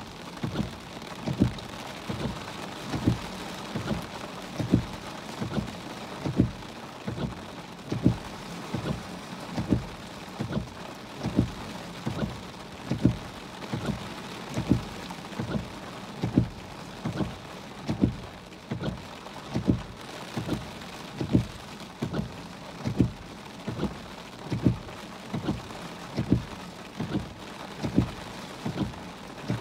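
Heavy rain hissing on a car's windshield and body, with the windshield wipers thumping in a steady rhythm, a pair of dull knocks about every one and a half seconds as the blades turn at each end of their sweep.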